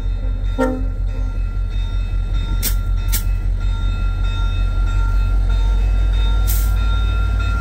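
Freight train with EMD SD75I diesel locomotives passing, a deep steady rumble. A short horn blast sounds about half a second in, and a few brief high-pitched bursts come around three seconds in and again near the end.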